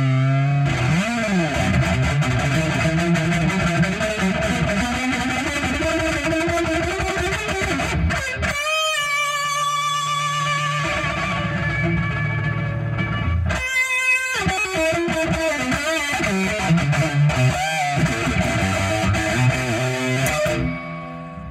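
Electric guitar played through effects, long sustained notes with wavering vibrato and two quick upward slides partway through. The sound fades away near the end.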